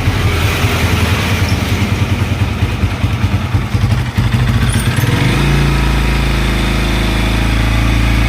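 Bajaj Pulsar NS200 single-cylinder engine, just rebuilt with new valve guides, running unevenly with a pulsing beat, then settling into a steady idle about five seconds in. This is its first run to check whether the tappet noise is cured.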